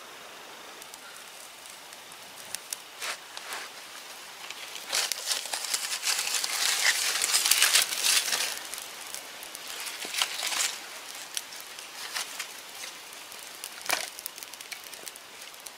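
Dry grass tinder rustling and crackling as it is handled over smouldering embers and catches fire. The crackling is densest about five to eight seconds in, with a few sharp snaps after that.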